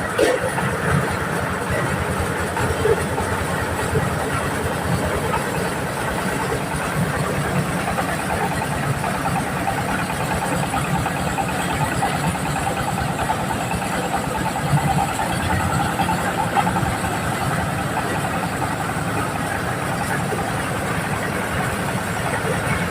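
Engine-driven corn sheller machine running steadily, its engine at a constant speed.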